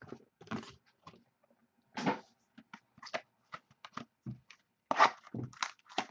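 Cardboard trading-card mini boxes being handled: irregular scrapes, rubs and light knocks of card stock, louder twice, about two seconds in and about five seconds in.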